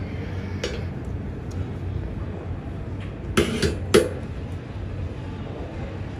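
Steady low rumble of airport apron noise, with a few sharp clinks and knocks: one about two-thirds of a second in and a louder cluster of clattering around three and a half to four seconds in.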